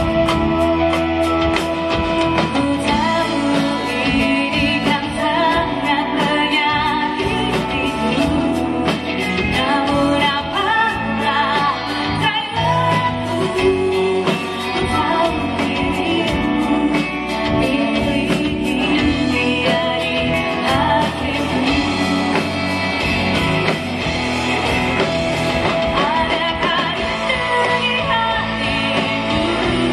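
Live band playing a pop-rock song: singing over drums, electric guitars and keyboards.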